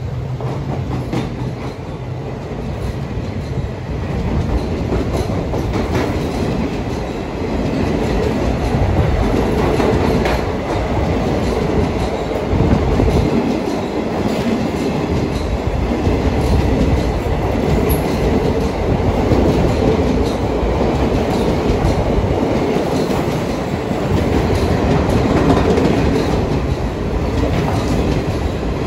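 Passenger train coaches passing at speed close by inside a railway tunnel: a steady, loud rumble of wheels on rails, with occasional sharp clicks as the wheels cross rail joints.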